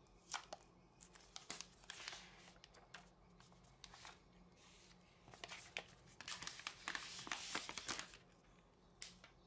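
Packaging being handled during a tablet unboxing: crinkling and rustling with scattered light clicks and taps. The crinkling is thickest about six to eight seconds in.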